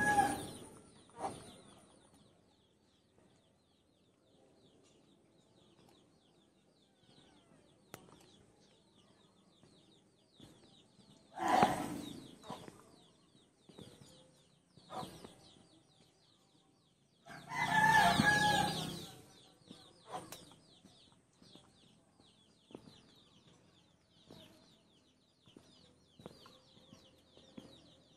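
A rooster crowing: the end of one crow at the start, a short crow about 11 seconds in and a longer one about 18 seconds in, over faint rapid high chirping.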